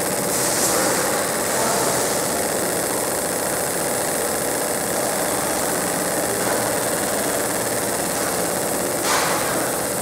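Fiber laser marking machine engraving aluminum: a steady buzzing hiss from the beam ablating the metal, with a steady hum underneath.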